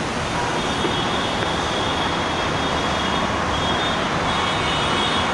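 Mumbai Metro train running: a steady rush and rumble with a faint high whine through the middle.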